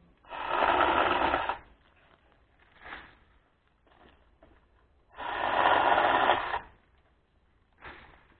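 A small handheld power tool run in two bursts of about a second and a half each, held up in apple-tree branches. A few faint knocks and rustles come between the bursts.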